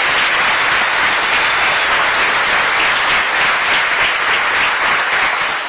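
Audience applauding, many hands clapping steadily, dying down near the end.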